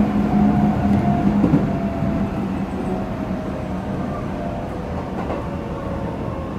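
Toyo Denki late-type GTO VVVF inverter of a Chiba New Town Railway 9100 series train, heard from inside the car over the running noise. Its whine falls slowly in pitch as the train slows toward a station.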